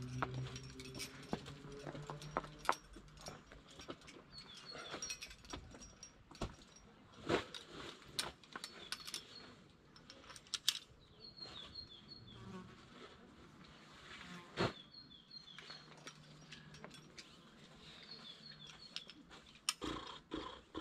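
Sporadic clicks, taps and scrapes of a climber's hands, shoes and gear on the rock and rope, with an insect buzzing at times and short runs of high bird chirps.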